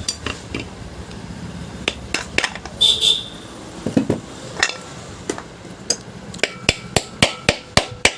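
A hammer driving a new ball bearing into a ceiling fan. A few scattered knocks and clicks come first; then, from about six and a half seconds in, a steady run of sharp metallic blows, about four a second, with a faint ringing note.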